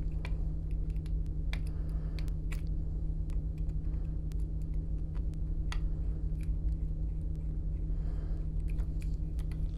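A hand pin vise drilling small holes into the plastic cab of an HO-scale model locomotive, giving scattered faint crunching clicks as the bit cuts. A steady low hum runs underneath.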